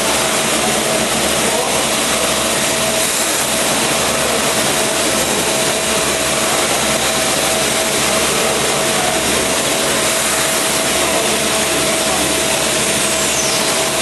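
Machine-shop machinery, such as a running lathe, making a steady, even noise with a constant hum and a faint high falling squeal near the end.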